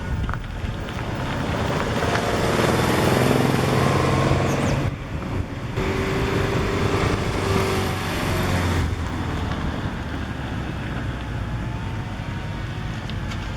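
Subaru Impreza's flat-four boxer engine running under way. It builds up over the first few seconds, drops off sharply about five seconds in, builds again, then eases to a steadier level after about nine seconds. This is the engine with an intermittent knocking/popping that the owner cannot pinpoint and hopes is not rod knock.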